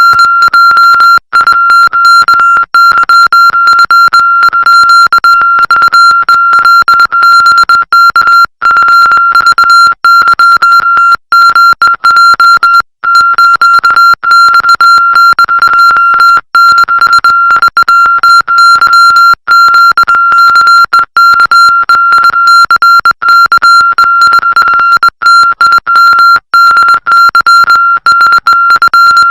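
Morse code sent as a single loud, high-pitched electronic beep tone, keyed on and off rapidly with short breaks throughout.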